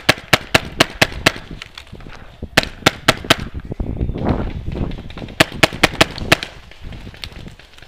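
Tippmann Phenom paintball marker firing in three quick strings of five or six shots, about five shots a second, with a single shot near the end. Between the second and third strings there is a stretch of rustling, as of movement through dry leaves.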